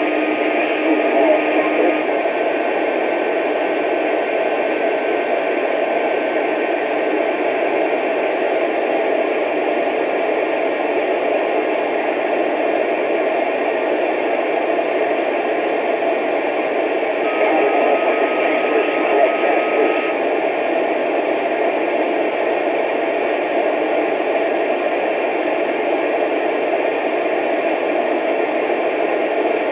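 Steady static hiss, thin and narrow like noise on a radio or phone line, with a faint thin tone sounding for a few seconds about two-thirds of the way through.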